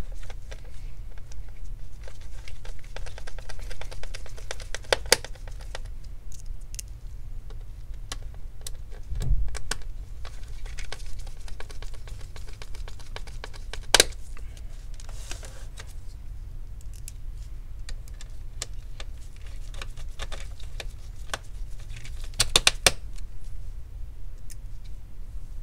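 Small screws being driven by hand with a screwdriver into a display frame: stretches of fine rapid ticking and scattered sharp clicks and taps, the loudest about 14 seconds in and a cluster near the end.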